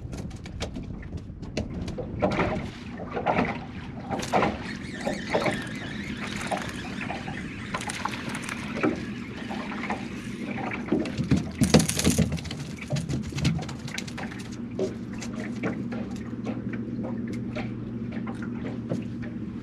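Small waves lapping and slapping against a boat's hull, with many short clicks and knocks. There is a brief loud rush of noise a little past halfway, and a low steady hum comes in for the last few seconds.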